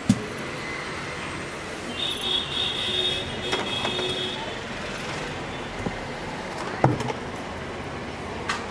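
Steady background hum of street traffic, with a few knocks and rustles from the handheld phone being moved about. A sharp knock comes right at the start and another about seven seconds in.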